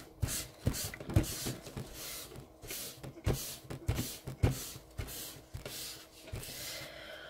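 A tissue rubbing black soft pastel into paper, repeated back-and-forth scrubbing strokes, each a brushing swish with a soft knock. About two strokes a second, turning into longer, slower sweeps near the end.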